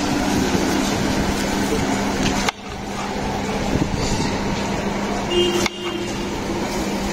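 Steady roadside street noise from traffic, with a steady low hum underneath. It breaks off abruptly twice and picks up again.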